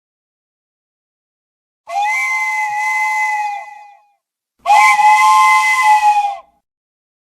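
Steam whistle blowing two blasts of about two seconds each. Each blast is a steady chord of several tones with a hiss of steam over it.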